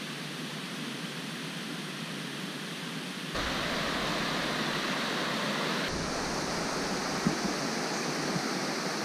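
A rocky forest stream rushing over boulders, a steady hiss of running water that gets louder about three seconds in and changes again about six seconds in.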